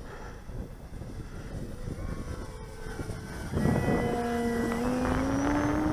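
Electric motor and propeller of a radio-controlled Cessna 170 model plane whining in flight. It is faint at first, then louder from about three and a half seconds in, with its pitch slowly rising.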